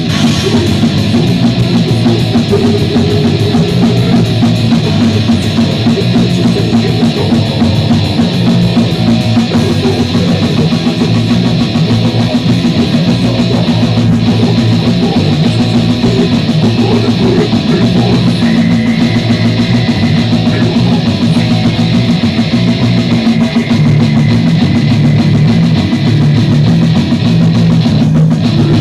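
Goregrind music: a heavily distorted guitar riff over drums, loud and dense without a break.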